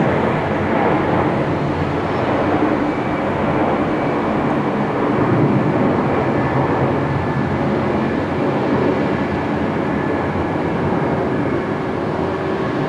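Jet airliner engines at an airport heard from a distance: a steady, loud rumble with a faint high whine running through it.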